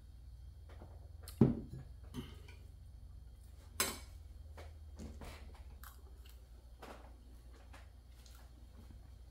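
A drinking glass knocks down onto the table about one and a half seconds in. A metal spoon then clinks sharply against a ceramic bowl, and lighter spoon scrapes and soft chewing follow as a spoonful of rice and lentil khichdi is eaten.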